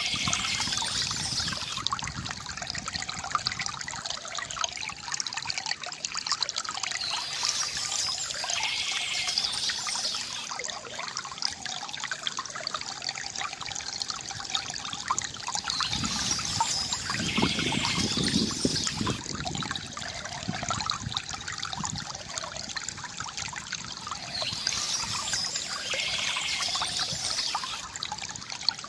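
Water trickling and gurgling steadily from a bamboo fountain spout into a basin. Birds chirp in spells of a few seconds that come back about every eight seconds, and there is a deeper gurgle about two-thirds of the way through.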